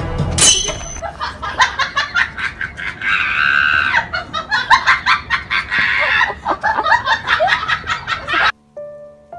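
A person laughing and squealing over and over in quick high-pitched runs, with sharp clicks and knocks between. The sound cuts off near the end and soft piano music begins.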